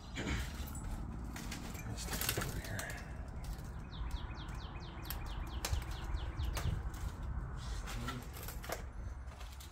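Footsteps and rustling, with scattered knocks and clicks and a run of quick scraping strokes in the middle, over a low handling rumble.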